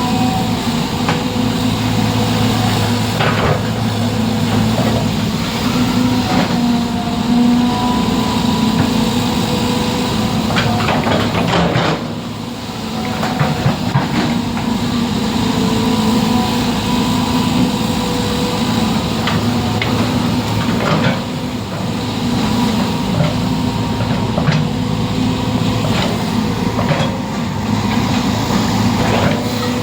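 An engine running steadily at an even pitch, with scattered knocks and clanks.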